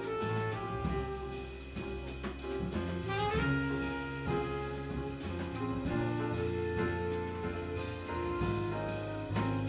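Jazz quartet playing live: a trumpet plays held melodic notes over piano, bass guitar and a drum kit with steady cymbal strokes.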